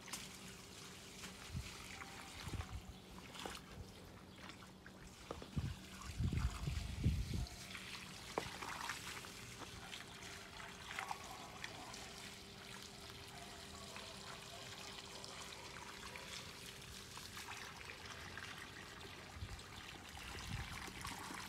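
Water trickling from the open end of a garden hose onto soil and mulch at the base of plants. A low rumble, the loudest sound here, comes for a couple of seconds about six seconds in.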